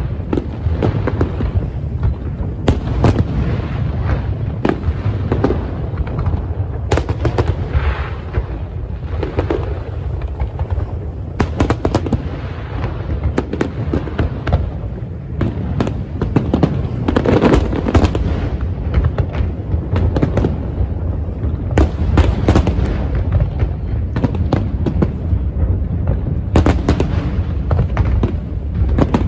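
Aerial firework shells bursting overhead in a dense, unbroken barrage of bangs and booms over a heavy low rumble.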